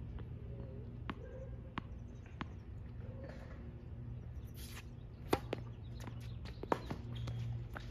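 Tennis ball bounced three times on a hard court, then the sharp crack of a racket striking the serve about five seconds in, followed by a few more ball hits and bounces as the rally begins. A steady low hum runs underneath.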